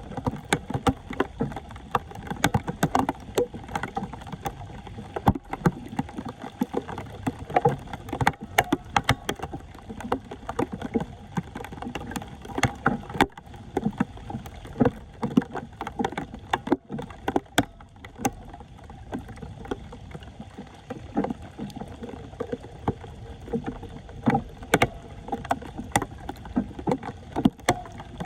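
Floodwater splashing and sloshing in frequent irregular bursts, with knocks among them, as it is worked by hand or tool around a clogged street drain.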